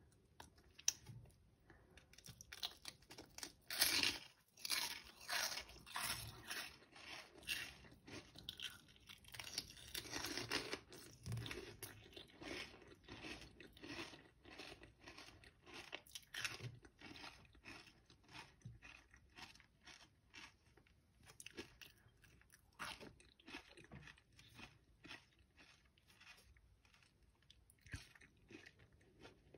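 Close-up crunching and chewing of a raw green pepper stuffed with labneh and cheese-flavoured rolled corn chips: a string of crisp bites and crunches, loudest in the first half, then sparser and softer chewing.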